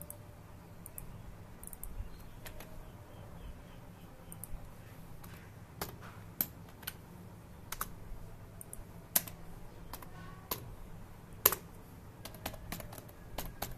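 Computer keyboard typing: separate key clicks at an irregular pace, with a few louder keystrokes.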